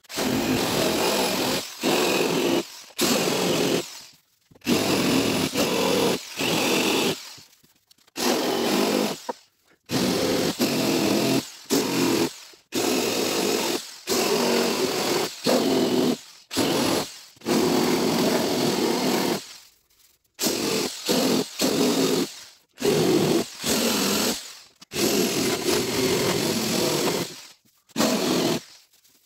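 Handheld rotary tool with a small corundum abrasive disc grinding rust spots off the painted steel of a car door, run in short bursts of one to two seconds that start and stop over and over.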